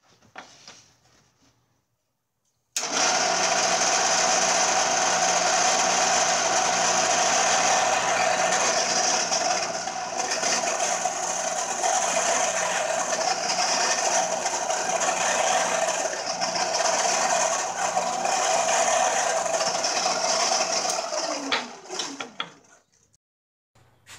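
Drill press motor switched on, running steadily for about eighteen seconds while small pilot holes are drilled through the circle centres in a fir block. It is then switched off and spins down with a falling pitch.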